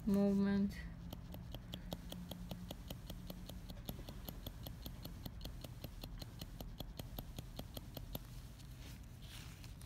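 Manual hand-tool shading needle (15 double-row) tapping repeatedly into practice skin with pigment. The small poking strokes make a quick, even run of light ticks, about five a second.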